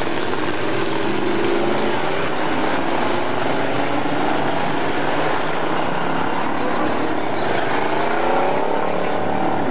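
Street stock race cars' engines running around a dirt oval, their pitch rising and falling as the cars accelerate and pass.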